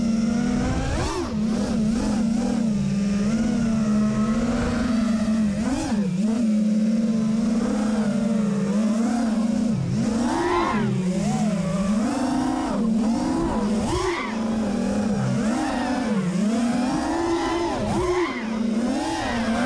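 QAV210 racing quadcopter's DYS 2205 2300kv brushless motors and Kingkong 5x4x3 three-blade props whining, the pitch swinging up and down over and over with throttle changes.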